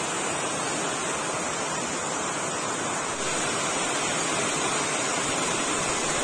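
Steady rain falling, an even hiss of rainfall that gets a little louder about three seconds in.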